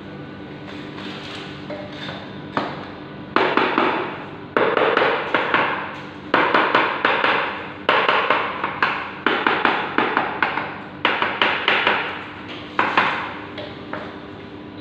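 Repeated hammer blows on hard ceramic tile work, coming in quick runs of several strikes with short pauses between, starting a couple of seconds in.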